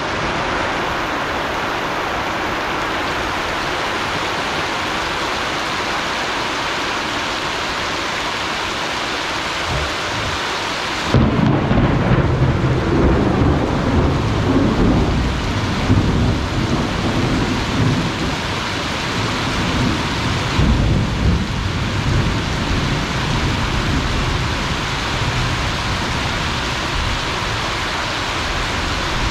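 Heavy rain falling steadily. About ten seconds in, a low rumble of thunder sets in and rolls on for several seconds, with another swell about two-thirds of the way through.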